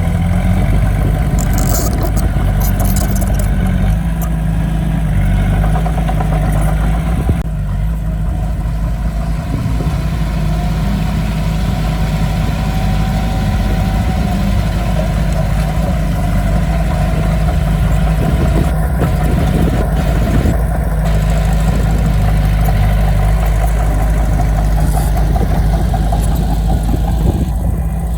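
Heavy earthmoving machine's diesel engine running steadily with a deep, continuous rumble, easing briefly a quarter of the way in.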